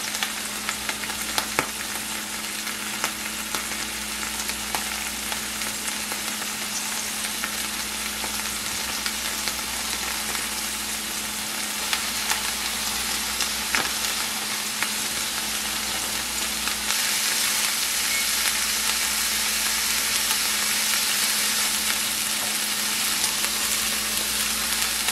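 Red onion slices and chopped bell peppers sizzling in hot oil in a cast-iron skillet, a steady frying hiss with a few faint clicks. The sizzle gets a little louder about two-thirds of the way through.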